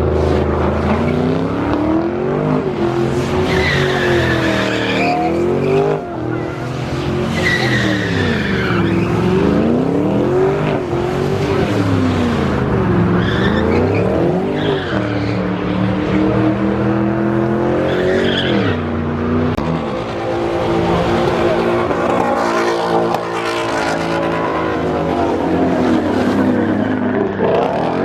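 Car engine revved up and down over and over, with repeated tire squeal from spinning rear wheels: a burnout.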